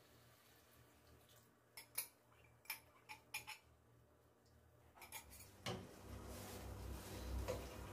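A few faint clicks and clinks as a glass jug and the pan are handled, then a faint, steady sizzle of coconut milk starting to cook in a nonstick pan around two frying fish.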